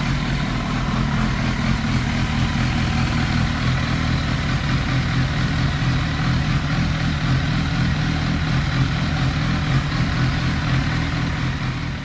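Turbocharged 1991 Kawasaki ZXR750 inline-four idling steadily, its idle fuelling and ignition timing freshly dialled in so that it runs clean without smoke.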